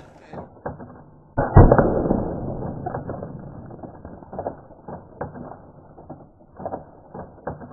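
Slowed-down replay of a paintball gun shot striking an egg: one sudden loud, dull bang about a second and a half in that dies away slowly over several seconds, followed by a few fainter knocks.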